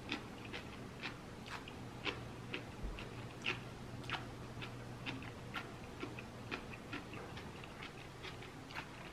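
A person chewing food close to the microphone: small, crisp clicks and crunches at an irregular pace, one or two a second.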